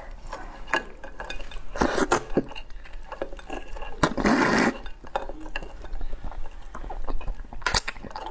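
Eating a whole swimming crab: sharp cracks and clicks of shell being broken, with a loud slurp about four seconds in as the meat and roe are sucked from the body.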